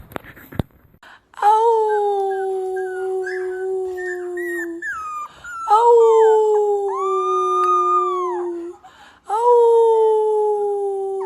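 A dog howling: three long howls, each rising sharply and then sliding slowly down in pitch. A second, higher howl overlaps the middle one.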